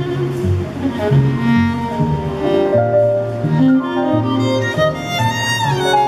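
Violin and cello playing together, the cello's low notes changing about once a second under longer held violin notes.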